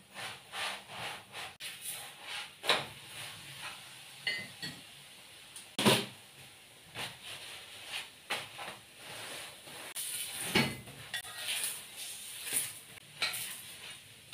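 A metal spoon scraping and knocking against a flat pan as oil is spread over a chapati and the chapati is turned, with faint sizzling of hot oil. The knocks come irregularly; the loudest are about 3, 6 and 10 seconds in.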